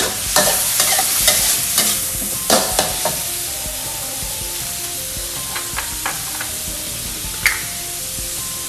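Shrimp and garlic sizzling in hot oil in a pan as the stir-fry is stirred, with a spatula scraping and clattering against the pan over the first three seconds and a few single clinks later, one sharp one near the end.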